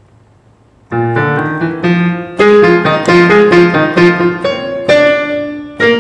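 Digital piano playing the baritone and soprano line of a choral part as a rehearsal guide: a quick phrase of struck notes, some repeated, starting about a second in after a quiet moment.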